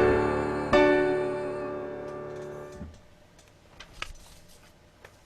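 Piano playing the closing chords of a piece: a final chord is struck under a second in and rings out, fading away over about two seconds. A few faint clicks follow.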